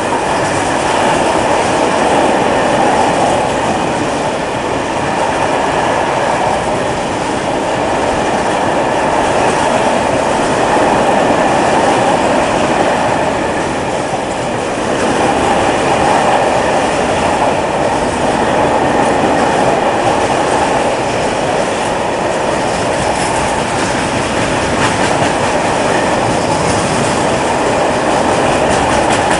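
Freight train of tank wagons, hauled by an SNCF BB 26000 "Sybic" electric locomotive, rolling past close by: a loud, steady rumble of steel wheels on the rails.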